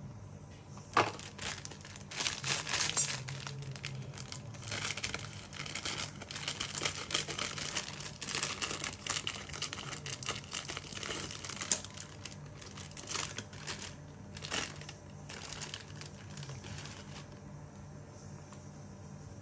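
Foil tea-pod sachet crinkling and tearing as it is handled and opened, with a couple of sharp clicks among the crackle.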